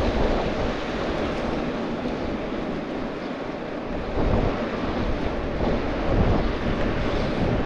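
Wind rushing over the microphone of a camera on a moving bicycle: a steady rush with a few heavier gusts.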